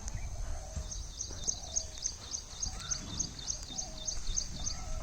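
A small bird chirping over and over in a quick, even series of high notes, about three a second, with low wind rumble on the microphone.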